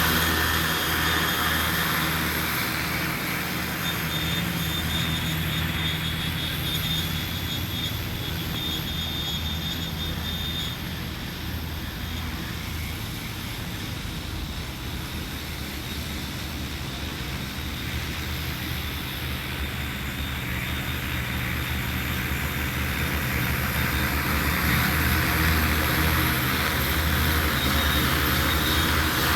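Multirotor agricultural spraying drone with a 15-litre tank in flight, its rotors humming steadily. The sound fades somewhat through the middle and grows louder again toward the end, as the drone moves away and comes back.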